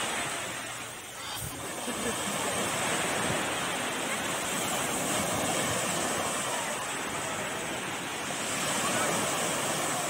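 Small sea waves breaking and washing up the shore in a steady surf wash, dipping about a second in and swelling again near the end.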